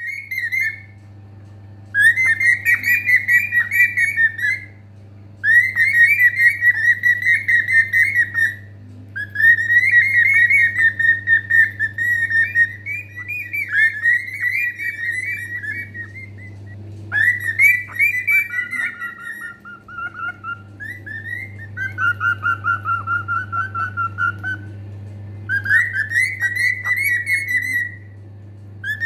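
Cockatiel whistling a warbling song in repeated phrases of two to three seconds with short pauses between, each phrase a quick trilling around one note; partway through, some phrases drop to a lower, steadier note. A faint steady low hum runs underneath.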